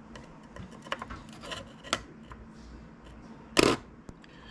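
Small clicks and taps of glass and plastic parts being handled as the glass plate is set back into a resin printer's screen assembly. About three and a half seconds in there is one short, louder rushing noise.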